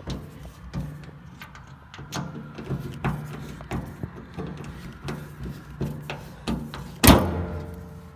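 Screwdriver clicking and scraping at flathead screws in the steel access plate of an old, rusty fuel tank, in irregular small knocks. About seven seconds in comes one loud clank that rings on briefly.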